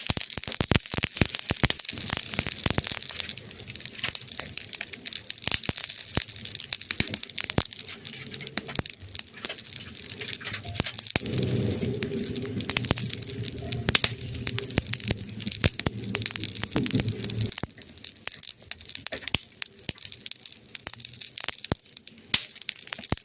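Campfire burning with a steady hiss and frequent sharp crackles and pops of the wood. A low hum joins for several seconds in the middle.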